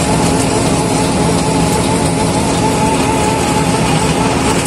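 Asphalt cold milling machine at work: its engine running steadily under load as the milling drum cuts the road surface, with a wavering whine over a dense rumble.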